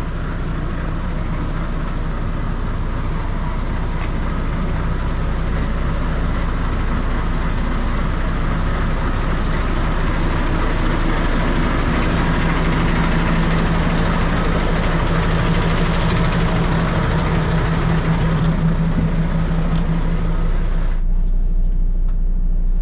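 Steady drone of parked lorries' engines running at a truck stop, with a constant low hum underneath and a brief hiss about sixteen seconds in. Near the end the higher noise cuts off suddenly and only a low hum remains.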